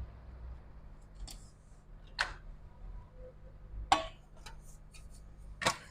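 Scattered sharp clicks and light knocks from a laptop and small tools being handled on a workbench, about five spaced irregularly, the loudest near the end, over a low steady hum.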